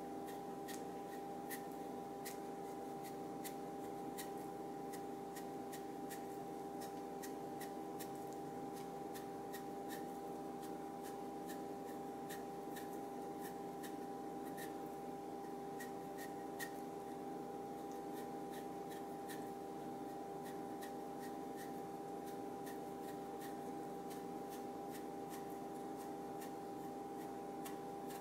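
Freshly sharpened single-bevel yanagiba knife paring a continuous thin sheet from a daikon radish (katsuramuki), the edge giving irregular small crisp ticks as it works through the flesh. A steady electrical hum runs under it.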